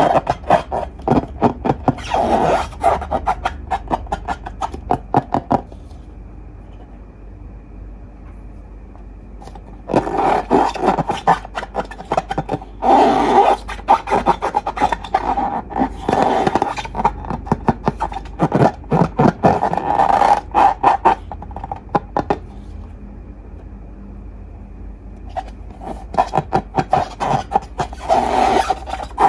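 Slime being worked by hand, giving dense sticky crackling and clicking in spells of several seconds, with quieter pauses about six seconds in and again about twenty-two seconds in.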